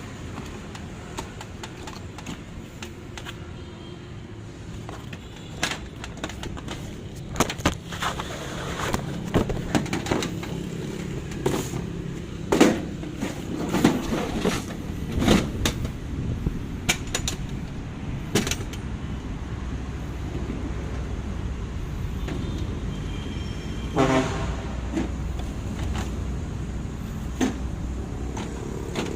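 Irregular clicks and knocks of hard objects being handled, thickest in the middle of the stretch, over a steady low hum.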